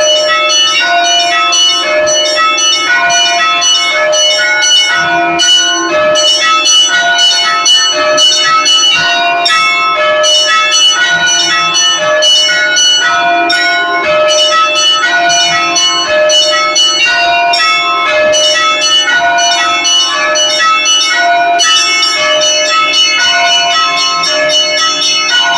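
Russian Orthodox church bells rung in a continuous festive peal. Quick, dense strikes on the small, high bells ring over a steady sounding of the larger, deeper bells.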